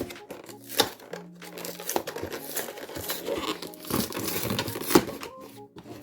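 Plastic packaging crinkling and tearing as a boxed product is unwrapped by hand: dense crackling with sharp snaps, busiest in the middle seconds and easing off near the end.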